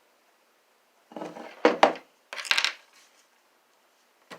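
Hard pieces of a broken bird feeder knocking and clattering together as they are handled and fitted, in two quick rattling bursts about a second in, then a single click near the end.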